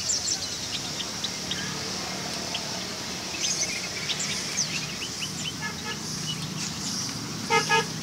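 Caged songbirds chirping, many short calls scattered throughout, over a steady low engine hum. A vehicle horn beeps faintly about six seconds in, then twice quickly near the end.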